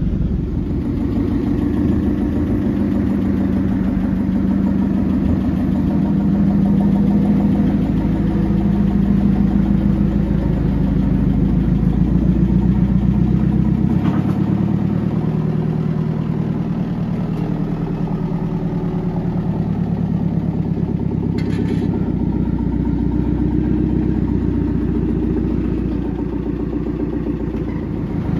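Forklift engine running steadily while the forklift drives with a snowmobile on its forks.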